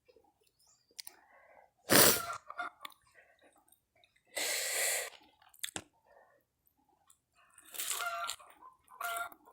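A person biting and chewing crunchy fried snacks in separate noisy bursts, the loudest a sharp crunch about two seconds in. Two short voiced sounds come near the end.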